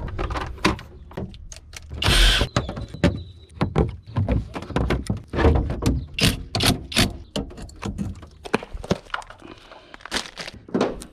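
Hand work on a car engine: a string of short clicks, knocks and thunks from tools and parts being handled, with a longer noisy burst about two seconds in.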